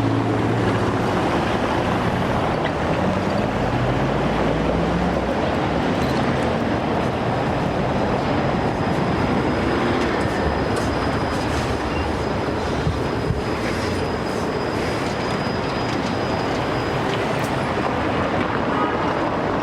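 Tram running past, with the electric traction motor's whine rising in pitch over the first few seconds as it accelerates, over steady rolling noise. A thin high wheel squeal is heard through the middle.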